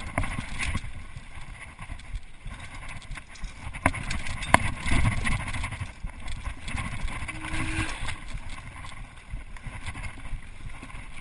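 Mountain bike riding fast down a forest dirt trail: a steady rush of tyre noise and wind on the microphone, with the bike rattling and knocking over bumps, the sharpest knock about four and a half seconds in.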